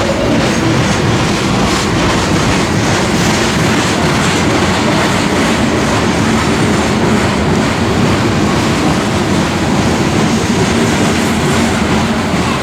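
Coal train's hopper cars rolling past, with a steady rumble of steel wheels on rail and a clickety-clack over the rail joints.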